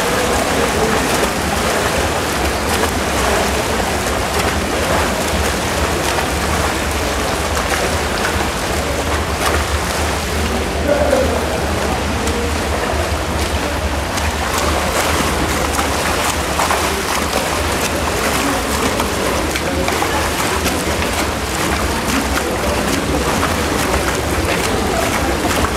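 Steady splashing and churning of pool water from swimmers' front crawl arm strokes and kicks, over a constant low hum.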